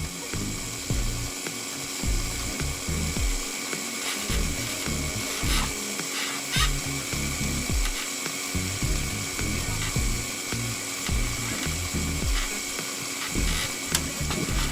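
Electric vacuum pump running steadily, evacuating an air conditioner's refrigerant piping, with a constant high whine and uneven low rumbling underneath.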